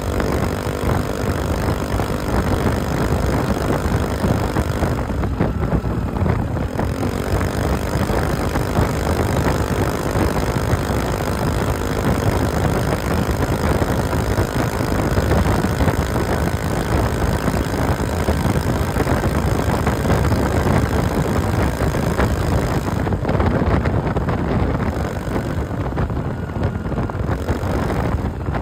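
Regulmoto Grido four-stroke scooter running steadily through an aftermarket Akrapovič-replica straight-through muffler, heard close to the exhaust under the scooter while riding, mixed with road and wind noise.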